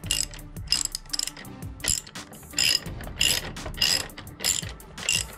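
Hand socket ratchet clicking in short repeated bursts as a bolt on the shock's upper mount is turned.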